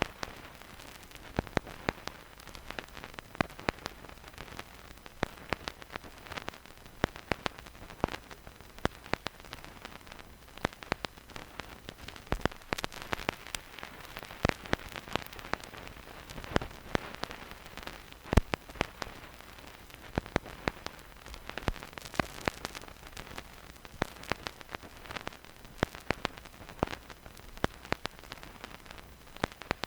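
Vinyl record surface noise with no music: a steady faint hiss under irregular crackles and pops, several a second, a few of them much louder than the rest.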